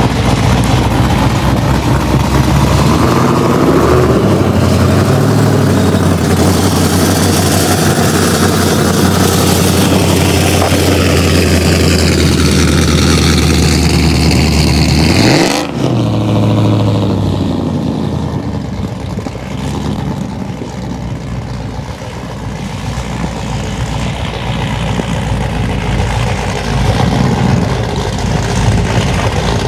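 2007 Chevrolet TrailBlazer SS's 6.0-litre V8 exhaust running loud at a steady held engine speed, then the revs drop off suddenly about halfway through. It settles to a lower, rougher rumble for the rest.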